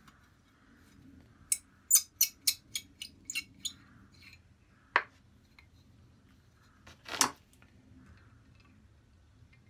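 Sharp metallic clicks as small steel and brass parts of a vintage Record 151 spokeshave are worked loose and handled by hand: a quick run of about eight clicks, then a single click, then a louder clatter about seven seconds in as pliers are taken up.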